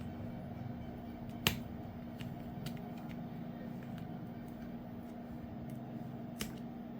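Small clicks of plastic parts and hand tools being handled while a smartphone is taken apart, with one sharper click about a second and a half in and a few fainter ones later. A steady low hum runs underneath.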